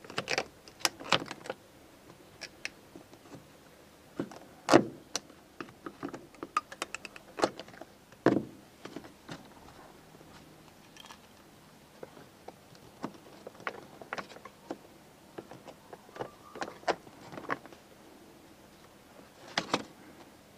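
Plastic and metal parts of a Gerni pressure-washer trigger gun being handled and fitted back together by hand and with pliers: scattered clicks, taps and knocks, the loudest about five and eight seconds in.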